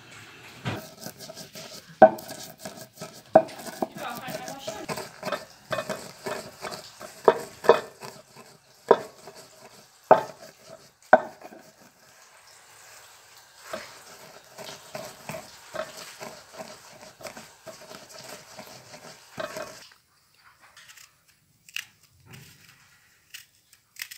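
Walnut kernels being crushed on a wooden board with a heavy, round hand-held crusher: sharp knocks as it strikes, about eight in the first eleven seconds, over a steady crunching and grinding as it is pressed and worked over the nuts. The grinding pauses briefly, resumes, and stops about twenty seconds in.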